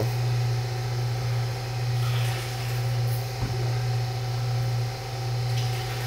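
Steady electric motor hum of a stainless steel milk bulk tank's agitator, running to stir the milk before a sample is drawn. A single soft knock sounds about halfway through.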